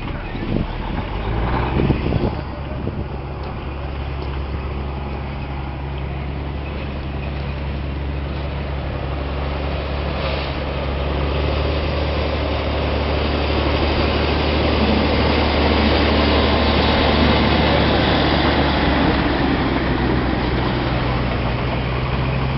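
Darjeeling Himalayan Railway toy train's locomotive engine running with a steady low hum, growing louder as the train comes near. A short louder noise comes about two seconds in.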